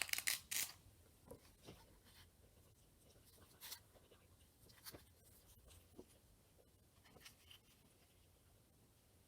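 Faint handling noise: a short flurry of clicks and rustles at the start, then a few scattered light clicks and rustles over a quiet room.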